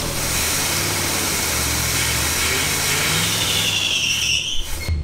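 1985 Oldsmobile Cutlass 442's V8 at hard throttle with a rear tire spinning, a loud hiss of wheelspin over the engine that starts and stops abruptly, with a tire squeal in the last second or so.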